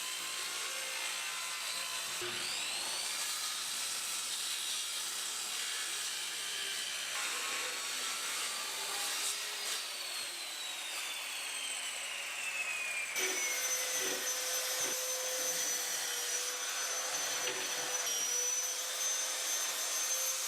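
Power saw cutting a plywood sheet: a steady whirring hiss with a thin high whine, changing abruptly about 13 seconds in, with a few soft knocks in the second half.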